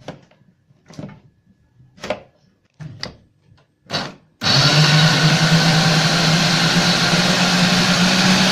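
A few short knocks, then about four seconds in an electric blender switches on and runs steadily with a loud motor whir, blending boiled carrots, orange segments and dates with their soaking liquid into a juice.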